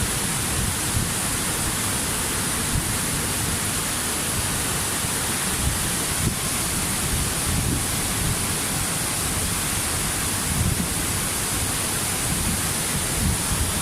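Waterfall: a steady, even rush of falling water with a low rumble underneath.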